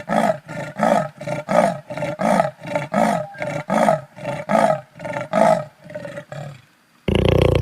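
Big cat roaring in a rapid run of short calls, about three a second, trailing off after about six and a half seconds. A different loud, steady sound cuts in abruptly near the end.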